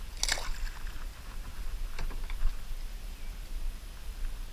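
Water splashing and lapping around a kayak, with a short splash about a quarter second in, over a steady low rumble.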